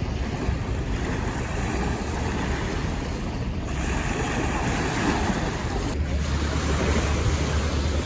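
Small sea waves lapping and washing over a sandy shore, a steady wash of water. Wind rumbles on the microphone, stronger about three-quarters of the way in.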